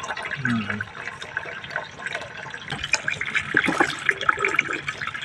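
Water splashing and dripping as freshly caught squid are handled in a basin and dumped into a bucket of water, with many small irregular wet splashes.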